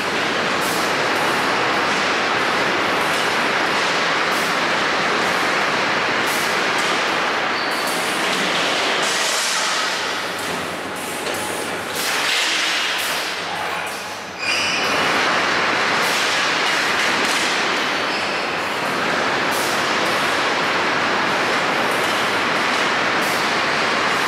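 Steel-bar bending machine running: a steady, loud mechanical noise with scattered light clicks through it. The noise sags for a few seconds about halfway, then comes back suddenly.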